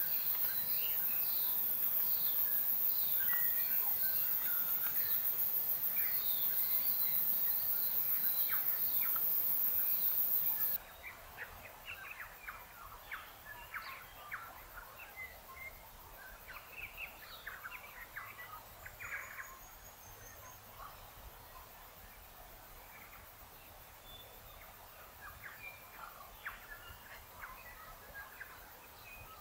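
Wild birds chirping and calling over a shrill, steady insect drone. About ten seconds in, the insect sound cuts off abruptly and the level drops, leaving quieter scattered bird chirps and calls.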